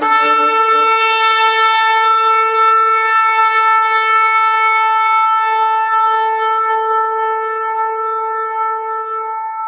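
Shofar blown in one long, held note, starting abruptly and sustained steadily, easing slightly in loudness toward the end.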